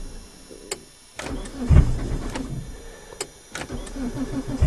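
1992 Eagle Talon's four-cylinder engine, run with no exhaust back pressure, stumbling through a cold start: it runs unevenly and sputters, surging about a second in and again near the end, struggling to stay running in the cold.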